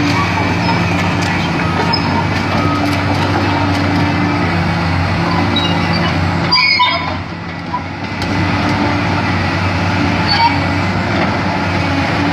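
Komatsu excavator's diesel engine running steadily, with machinery noise over it and a brief dip in level about seven seconds in.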